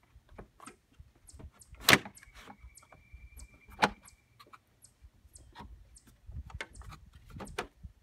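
Plastic radiator fan shroud knocking and scraping against the radiator and engine bay as it is worked into place by hand. Two sharp knocks, about two and four seconds in, stand out among lighter clicks and rubbing, and a thin steady high tone lasts about two seconds after the first knock.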